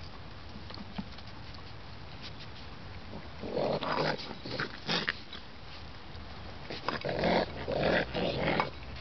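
Baby raccoons squabbling over food, crying out in two bouts: one starting about three and a half seconds in, the other about seven seconds in.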